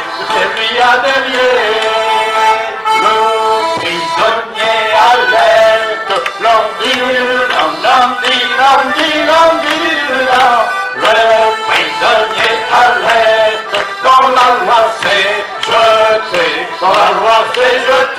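Folk group performing live: voices singing a song with strummed guitar and other acoustic instruments.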